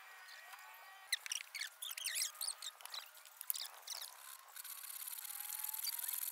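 Hand saw cutting through a wooden batten, rasping back-and-forth strokes that grow louder in the second half.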